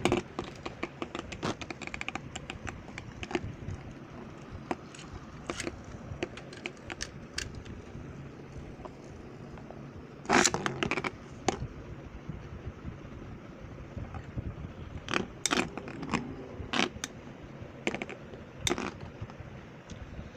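Metal Beyblade spinning tops whirring and rattling inside a plastic bowl, with sharp clacks as they strike each other and the rim. The clashes come in scattered clicks, with a dense burst about ten seconds in and more over the last few seconds.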